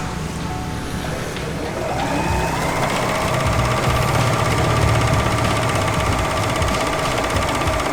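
Singer 14SH754 overlocker sewing a three-thread, one-needle narrow edge (neci). Its motor whine rises as it speeds up about two seconds in, then holds steady at speed over a fast ticking of stitches.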